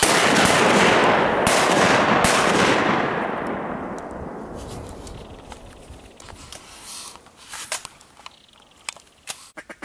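A flock of ducks flushing off a beaver pond: a sudden loud rush of wingbeats that holds for about three seconds, then slowly fades as the birds fly off.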